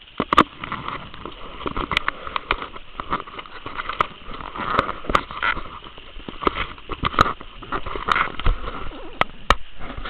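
Handling noise from a camera being carried and swung about, with footsteps and rustling through brush: irregular clicks and knocks over a steady hiss.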